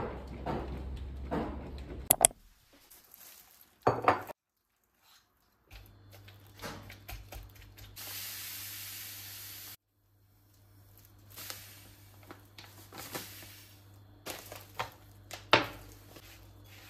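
A string of short kitchen sounds: clinks and knocks of dishes, cutlery or glass, with a steady hiss lasting about two seconds near the middle.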